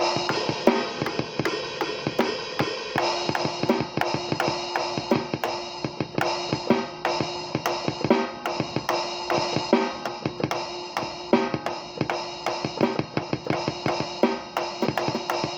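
Drum kit played freely: a steady stream of bass drum, snare and cymbal hits, several a second, with a ringing drum tone under them.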